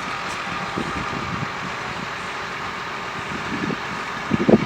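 Steady road traffic noise, with low rumbling swells about a second in and a louder one near the end.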